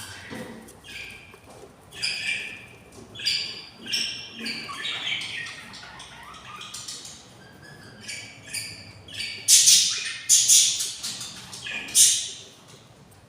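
Budgerigars giving a string of short chirps and squawks, ending in a cluster of louder, harsh screechy calls.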